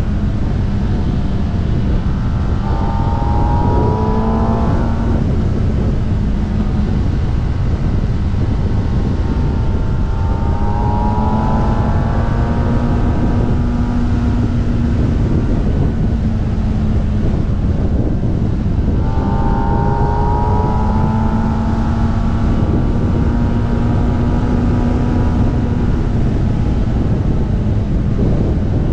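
Kawasaki ZX-10R's inline-four engine running at road speed under heavy wind rush on the bike-mounted microphone. Its pitch rises three times as it pulls and then holds steady.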